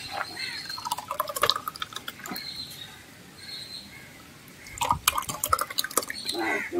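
A thick Boost milkshake poured from a bottle into a glass, glugging and splashing in two spells, about a second in and again near five seconds.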